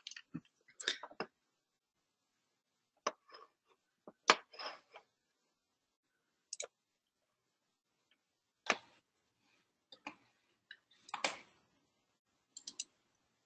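Sparse faint clicks and small taps, about a dozen at irregular intervals, over a near-silent open line.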